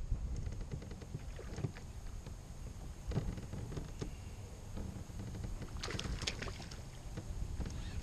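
Kayak on the water: steady hull and water noise with scattered light knocks, and a short cluster of sharper clicks about six seconds in.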